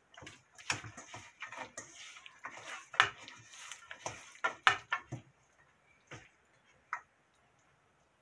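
A bare hand tossing and mixing seasoned sseumbagwi (bitter lettuce) roots in a stainless steel bowl: a dense run of irregular small clicks and smacks for about five seconds, then two single clicks, then quiet.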